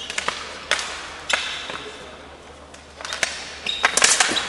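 Ball hockey sticks clacking against the ball, each other and the gym floor in a scramble for the ball, with sneakers squeaking on the court. A few spaced sharp hits, then a quick flurry of hits near the end, each ringing in the hall's echo.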